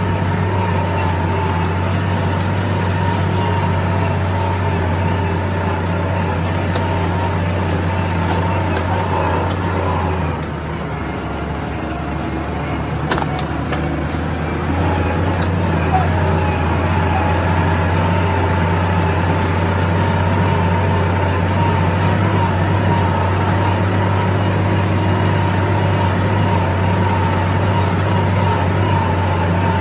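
Tractor engine running steadily under load, towing a disc harrow through the soil. Its low hum drops about ten seconds in and picks up again around fifteen seconds, with a few sharp clicks near thirteen seconds.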